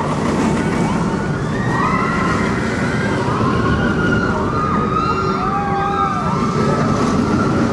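MACK Rides launch coaster train running along its steel track with a steady rumble, riders screaming over it in rising and falling cries. The rumble eases off just after the end.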